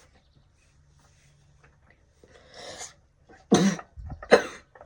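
A person coughing twice in quick succession near the end, after a soft breath.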